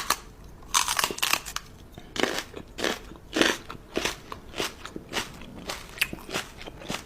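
Crunchy chewing: a run of irregular crunches, a few a second.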